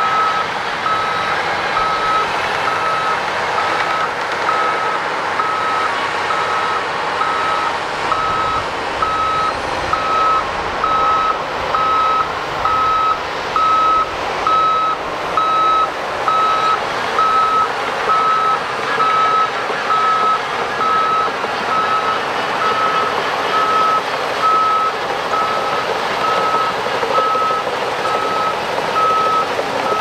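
Heavy-machinery backup alarm beeping steadily, about once a second, over the running engine and tracks of a Shantui DH17 crawler bulldozer working soil.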